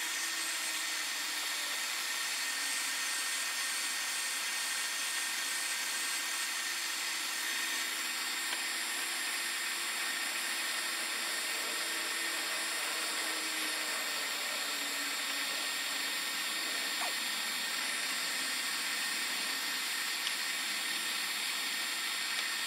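Makita angle grinder running steadily with an aluminum oxide sanding disc, sanding the cut end of a glass bottle, together with a shop vac drawing off the glass dust.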